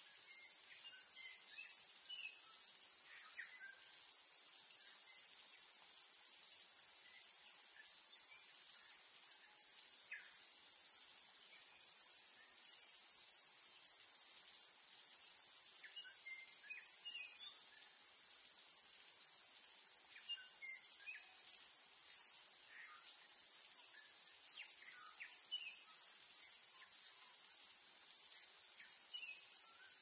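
A steady, high-pitched insect chorus that does not let up, with short bird chirps and calls coming in scattered little clusters every few seconds.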